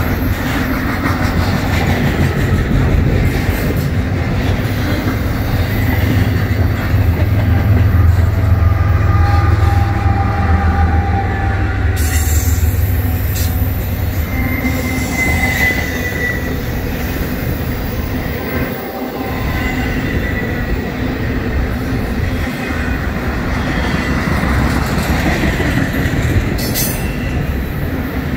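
Norfolk Southern double-stack intermodal train's well cars rolling past close by: a steady, loud rumble of steel wheels on rail, heaviest in the first half, with thin wheel squeals coming and going.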